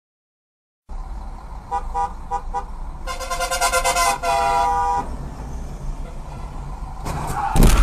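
After a second of silence, car horns honk in heavy traffic over the low hum of a car on the road: a few quick short toots, then a long blast followed by a second, lower one. Near the end a sudden loud thump and rumble sets in.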